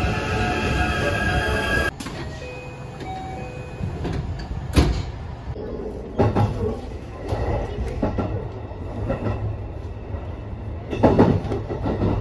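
Train noise: steady tones that drop away suddenly about two seconds in, then rumbling with a few sharp thumps of wheels or couplings.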